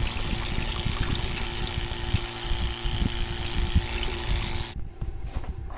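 A 12V water spray pump runs steadily, its motor hum under the hiss of the water spray, then stops suddenly near the end. Irregular low thumps sound underneath.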